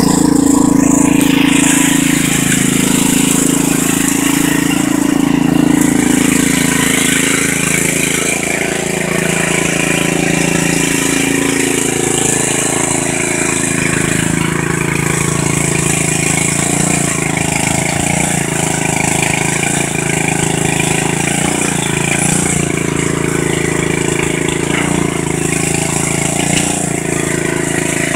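Riding lawn mower's small engine running under load as the mower churns through deep mud. It is loudest for the first several seconds, then a little fainter, with small rises and falls in pitch as the throttle and load vary.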